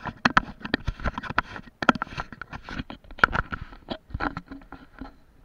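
Close handling noise of a carried action camera, with footsteps on gravel and dirt: a dense, irregular run of scrapes and knocks that stops near the end.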